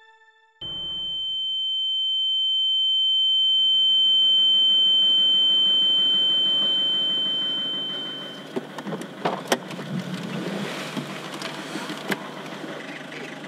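A high, steady ringing tone cuts in suddenly, swells and holds for several seconds, then fades out about eight seconds in: a film's ear-ringing shock effect after the car strikes the woman. Beneath it a car engine idling rises, and after the tone is gone there are a few sharp clicks and knocks.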